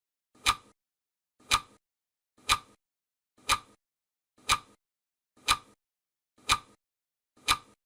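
Clock-tick sound effect of a countdown timer: one sharp tick each second, eight in all, with silence between the ticks.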